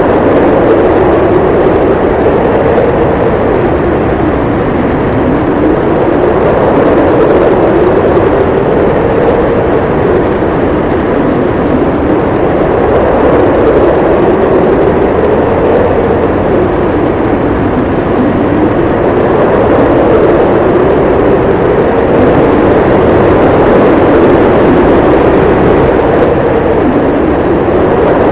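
Blizzard wind howling, a steady loud rush with a hollow moaning tone that slowly rises and falls in pitch every few seconds.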